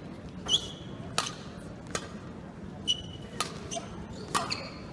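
Badminton rackets striking a shuttlecock in a fast warm-up rally: about seven sharp hits, each under a second apart, with short high squeaks of court shoes on the mat between them.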